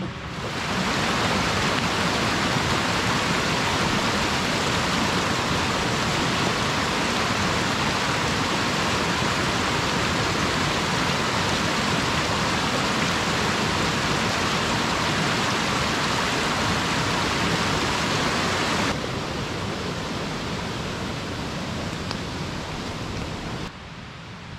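Steady rain, a loud even hiss that drops in level about two-thirds of the way through and again near the end.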